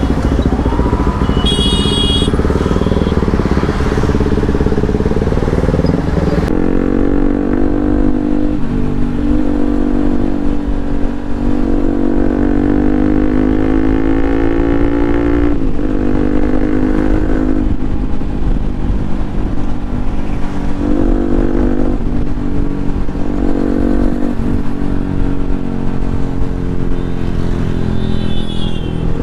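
Bajaj Pulsar RS200's single-cylinder engine running on the move, its note climbing slowly and dropping sharply several times as the rider accelerates and shifts gears, over a low rush of wind. A short horn beep sounds about two seconds in.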